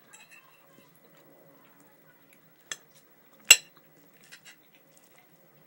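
Metal fork clinking against a dinner plate while eating: a few light clinks and one sharp, loud clink a little past the middle.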